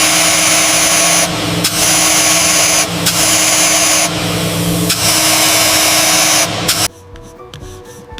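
Handheld power tool running steadily, its motor humming under a loud hiss, likely smoothing the locomotive's metal body before primer. It dips briefly a few times and cuts off suddenly about seven seconds in.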